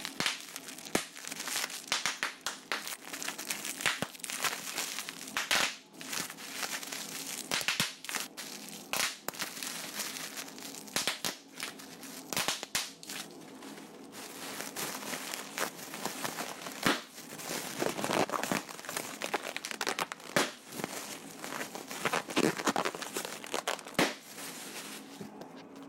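Crinkling and crumpling noise, an irregular run of many small sharp crackles and clicks, as when something is crumpled or handled.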